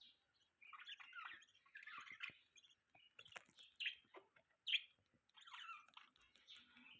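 Budgerigars chirping quietly in clusters of quick chirps and trills, with a few sharp clicks.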